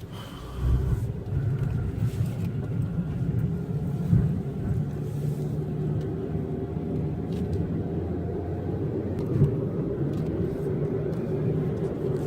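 A moving car's engine and road noise heard from inside the cabin, a steady rumble that grows louder about a second in.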